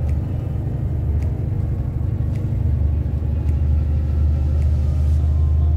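Heavy loaded truck driving slowly, its engine and road noise making a steady low drone that grows slightly louder about halfway through. Faint ticks come about once a second.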